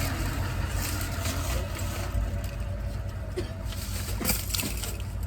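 Steady low rumble of a car's engine and road noise heard from inside the car, with a short knock near the end.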